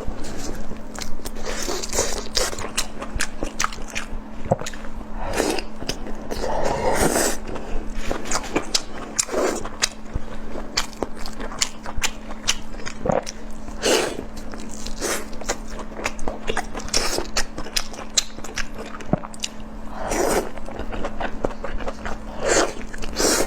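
A person biting and chewing food close to the microphone: irregular wet smacks and crunches throughout, over a faint steady hum.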